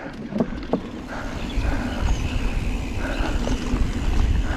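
Giant Trance 3 mountain bike rolling over a wooden plank boardwalk, its tyres knocking on the boards a few times early on. It then runs onto a dirt trail, where a steady low rumble of tyres and bike rattle takes over.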